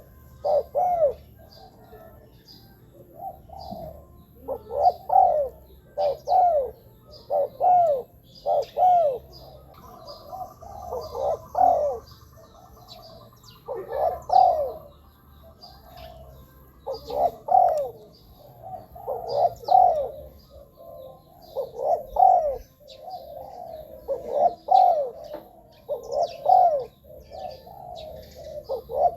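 Spotted dove cooing: short groups of low falling notes repeated every second or two, with brief pauses between groups. Faint high chirps of small birds sound behind it.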